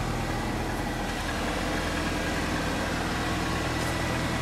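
An engine running steadily at idle: a low, even drone that does not change.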